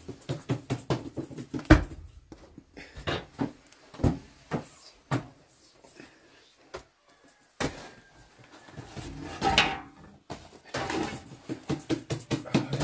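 Flatbread dough slapped onto the inner wall of a clay tandoor with a cloth baking pad, then the baked breads handled and pulled out: irregular thumps, taps and rustling, with one loud thump near the start.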